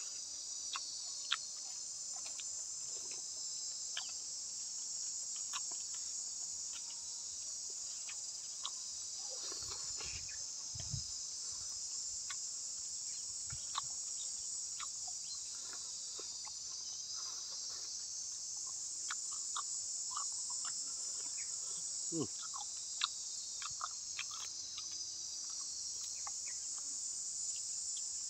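Steady high-pitched chorus of insects trilling, with many small scattered clicks and a brief low rumble about ten seconds in.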